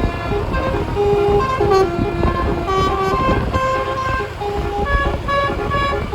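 12-note telolet air horn with roof-mounted trumpets playing a quick tune of short held notes that step up and down in pitch, over a low rumble.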